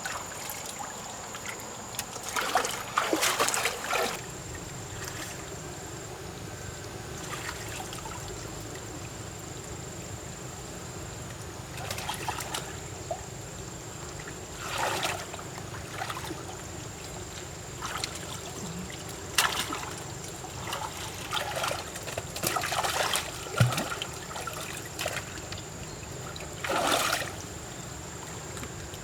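Water splashing and sloshing in short bouts, several times, over a steady low background hum and a thin high-pitched tone.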